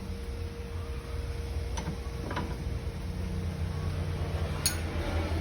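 A steady low machine hum with a few sharp light clicks, the loudest near the end.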